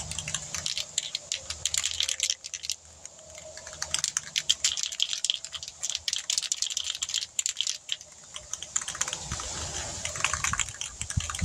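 Aerosol spray paint can being shaken, its mixing ball rattling in rapid clicks, in a few runs with short pauses between them.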